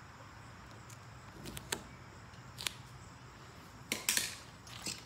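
Strips of heavy-duty tape being cut and handled: a few light clicks, then a short rasping burst about four seconds in and a softer one near the end.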